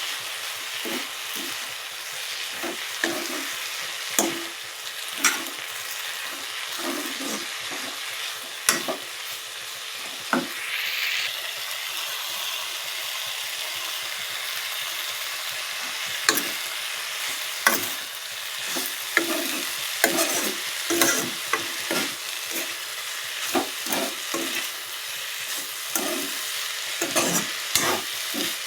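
Kakrol (spiny gourd) frying in oil in a pan, a steady sizzle, with a utensil stirring and knocking against the pan in frequent sharp strikes. The stirring pauses for a few seconds in the middle while the sizzle goes on.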